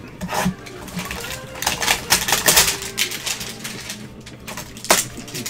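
Gloved hands handling a cardboard hanger box of trading cards: irregular rustling and scraping with small clicks, loudest about two seconds in, and a sharp click near the end.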